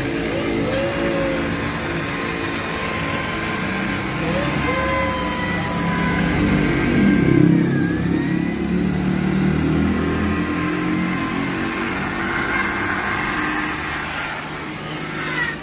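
Handheld electric rotary polisher running with a foam buffing pad on a scooter's plastic body panels, its motor pitch shifting slightly as the pad is pressed on and eased off.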